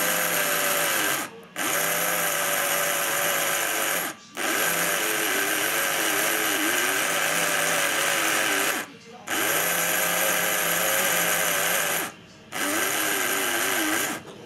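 Small electric motor of a vintage Hornby Princess Elizabeth model locomotive whirring as it spins the wheels against a powered wire wheel-cleaning brush, the pitch wavering as the brush drags on the wheel. The sound cuts out briefly four times.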